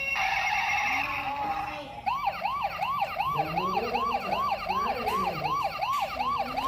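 Electronic siren sound effect from a battery-powered toy vehicle: a fast, repeating rising yelp, about three sweeps a second, starting about two seconds in after a burst of electronic hiss.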